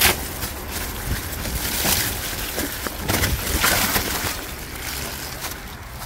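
Mountain bike rolling down a leaf-covered dirt trail: the tyres crackle over dry fallen leaves and the bike rattles over the bumps, with a low rumble of wind on the microphone. It gets quieter toward the end as the bike slows.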